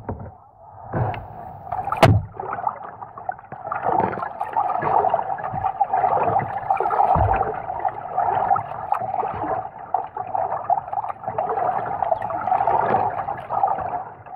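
Double-bladed kayak paddle dipping and pulling through the water, with continuous splashing and water washing along the hull, and a couple of sharp knocks in the first two seconds.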